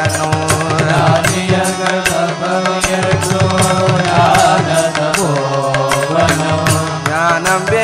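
Devotional bhajan: singing with wavering, ornamented melody over a steady drone, with hand percussion keeping a regular beat.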